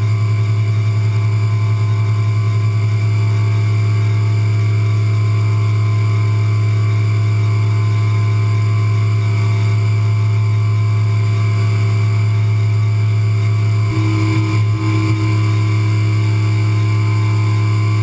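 CNC milling machine running while it machines a logo into the top of a metal part: a loud, steady hum with a strong low tone and several higher steady tones. About fourteen seconds in, the hum briefly changes, with a new tone coming and going for about a second.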